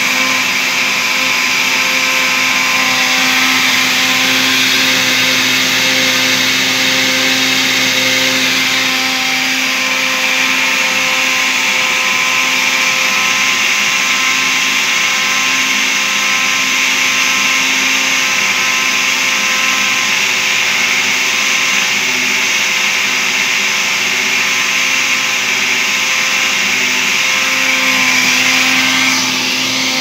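Arno Power Max 1400 W blender running steadily, its motor whining as the blade churns a thick cake batter of tangerine, eggs, oil and sugar.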